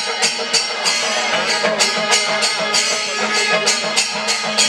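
Music with a steady beat: bright metallic strikes, about three a second, over sustained melodic tones.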